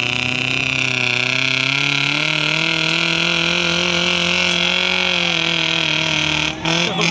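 Off-road vehicle engine running loud at steady high revs. Its pitch climbs a little about two seconds in, then holds, with a brief dip near the end.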